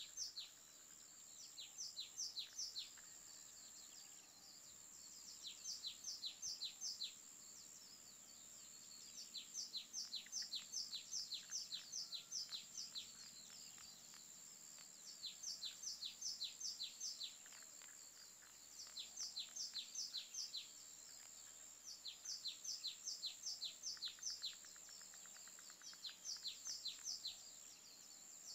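A bird singing in repeated bouts of quick chirps, each chirp sliding down in pitch, a new bout every few seconds. A steady high hiss runs underneath.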